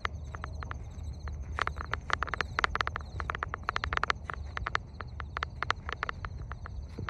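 Outdoor ambience: a low rumble of wind on the microphone, a steady high buzz, and quick irregular clicks or chirps, several a second.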